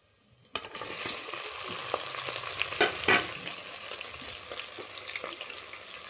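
Chopped onions dropped into hot oil in a pressure cooker: a sudden sizzle starts about half a second in and carries on as steady frying. Two sharp knocks come close together about three seconds in.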